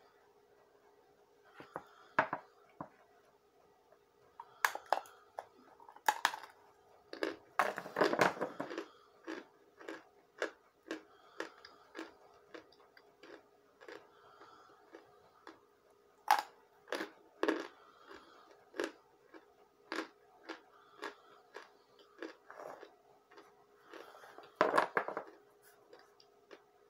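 A person biting and chewing hard, chalky chunks of cornstarch: irregular crisp crunches, with louder bites about eight seconds in and again near the end. A faint steady hum runs underneath.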